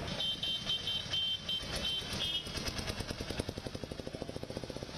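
A motorcycle engine running close by with a rapid, even chugging, about ten beats a second, through the second half. Before it, a series of short high chirps repeats for about two seconds over street noise.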